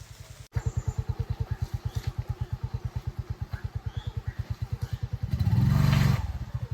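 Motorcycle engine running with an even low pulsing beat, about twelve beats a second, getting louder for about a second near the end as it is revved or pulls away.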